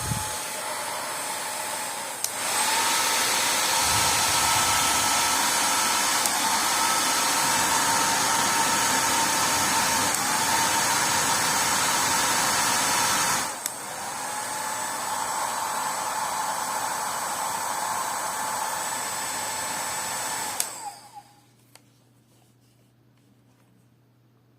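Philips Essential Care hair dryer blowing with a steady rush and a faint whine. It gets louder about two seconds in and drops back about eleven seconds later. Near the end it is switched off and the whine winds down into quiet. A brief low bump comes at the very start.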